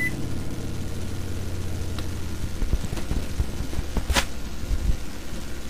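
Steady low electrical hum of a recording setup, with a few light clicks, the sharpest about four seconds in, and some soft low bumps.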